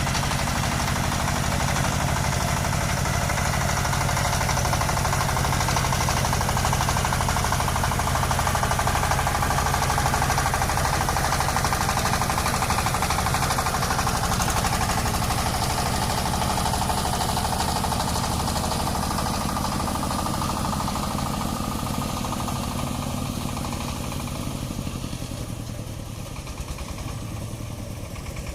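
Home-built farm truck with a horizontal single-cylinder diesel engine ("đầu ngang") labouring up a slope, running steadily under load. It fades gradually near the end.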